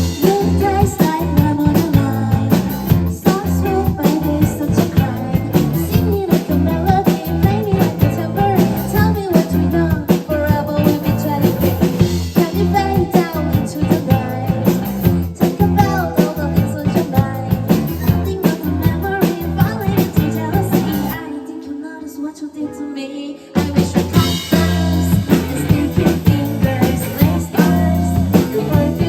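Rock band playing with drum kit and electric guitar, an instrumental stretch of the song. About 21 seconds in the drums and low end drop out for a couple of seconds, leaving a lighter part, then the full band comes back in.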